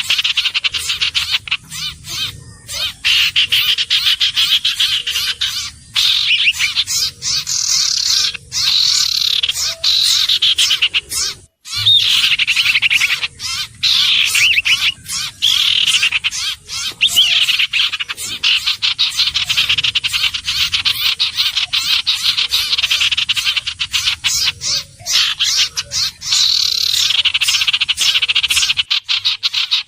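Iora calling: a dense, rapid, high-pitched trill that swells into rising and falling sweeps every few seconds, broken by frequent abrupt gaps.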